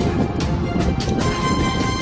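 Background music with sustained held notes.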